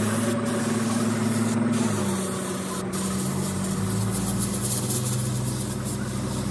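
A steady engine hum, dropping slightly in pitch about two seconds in.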